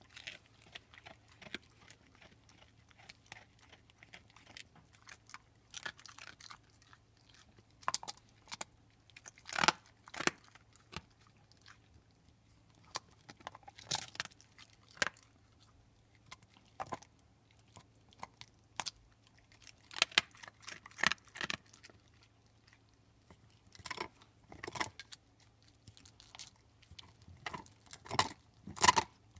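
A pit bull chewing on a beef bone: irregular crunches and cracks of teeth on bone a second or a few seconds apart, with louder bunches around ten seconds in, around twenty seconds in and near the end.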